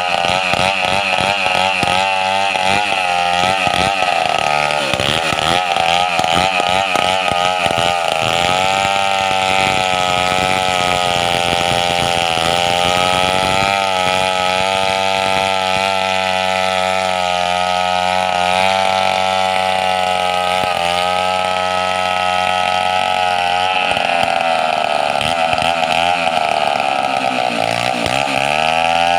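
Chainsaw engine running without a break, its speed wavering and uneven for the first several seconds, then holding steadier and higher. Near the end the revs dip and come back up.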